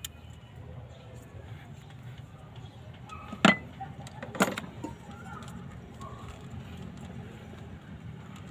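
Two sharp clicks about a second apart, a little over three seconds in, from a plastic wiring connector and its wires being handled, over a steady low background rumble.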